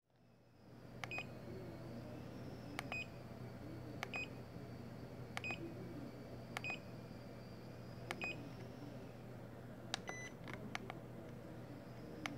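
Tactile push-buttons on a homemade timer module clicking as they are pressed, each press answered by a short high beep: six presses a second or so apart, then several quicker ones near the end. A low steady hum underneath.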